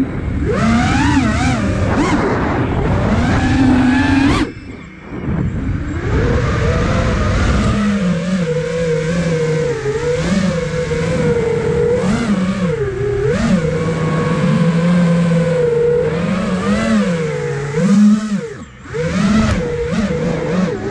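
The brushless motors and propellers of an iFlight Nazgul Evoque F5 5-inch FPV quadcopter whining, their pitch rising and falling with the throttle. The throttle drops off briefly twice, about four and a half seconds in and near the end, when the sound dips.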